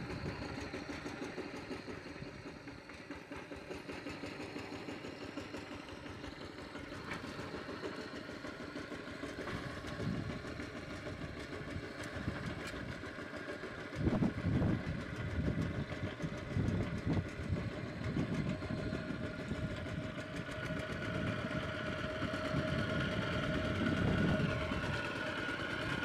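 Engine of a two-wheel walking tractor pulling a loaded trailer, running steadily. It gets louder about halfway through and stays louder as the tractor crosses the field.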